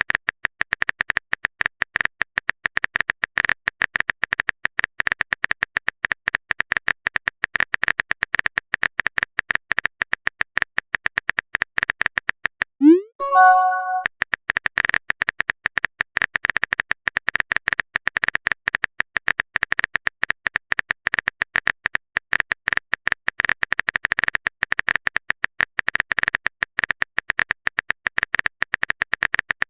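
Rapid typing clicks from a phone keyboard sound effect, rattling on without a break, stopping once about 13 s in for a short rising pop and chime, a message-sent notification, before the typing starts again.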